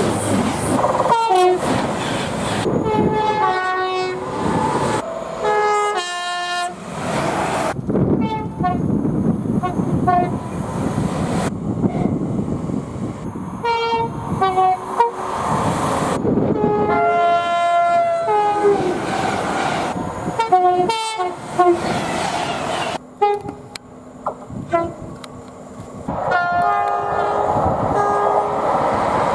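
Train horns sounding in a quick run of clips cut one after another, each blast a chord of several tones, over the noise of passing trains. A quieter stretch with a steady low hum comes about two-thirds of the way through.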